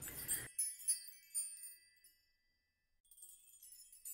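Quiet tinkling chime music with high, bell-like notes that dies away about two seconds in and starts again about a second later.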